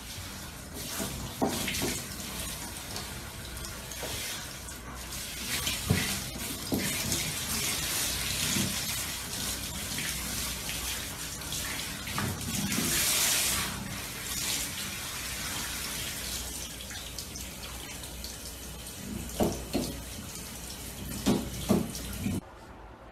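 Water spraying from a handheld shower head onto a dog's coat in a shower stall, a steady rush of water. A few short, louder sounds break in, about a second and a half and six seconds in and twice more near the end.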